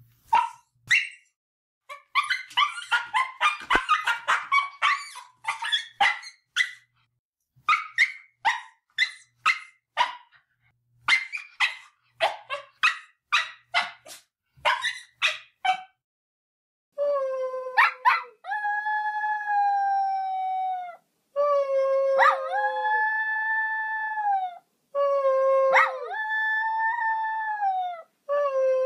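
Dog barking in quick runs of short barks, thickest and fastest a few seconds in. After a short pause, three long drawn-out howls of about three seconds each follow, each opening with a quick upward yelp and holding a steady pitch.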